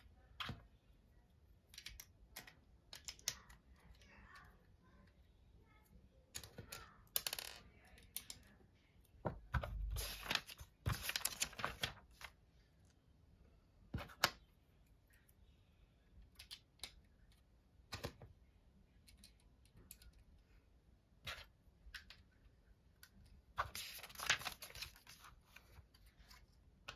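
Small plastic Lego pieces clicking and tapping on a table as they are picked up and pressed onto the build, in separate irregular clicks. Two longer stretches of rustling come around ten seconds in and near the end.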